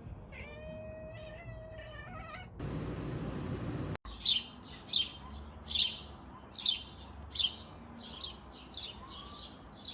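A domestic cat gives a long, wavering meow. A short stretch of hiss-like noise follows, and after a cut comes a steady series of short high chirps, about one a second.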